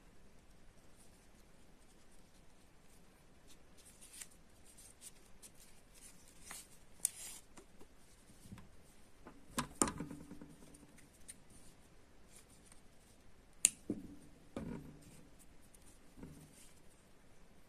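Faint rustling and soft clicks of hands handling a crocheted toy and drawing yarn through it with a sewing needle, with one sharp click about three-quarters of the way through.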